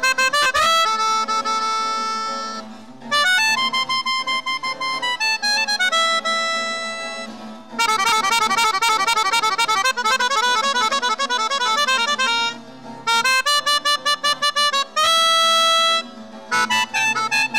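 Melodica played live, held reedy notes alternating with fast runs of rapid notes through the middle, broken by short pauses, with an acoustic guitar accompanying underneath.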